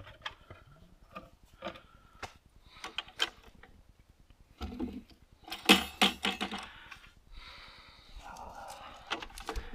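Scattered metallic clinks and knocks of parts and tools being handled, loudest in a cluster about six seconds in, followed by a soft rustling hiss.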